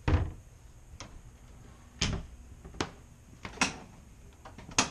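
A series of about six sharp knocks and clicks, roughly a second apart and the first the loudest: cupboard doors, latches and the refrigerator door being pushed shut as the trailer is closed up.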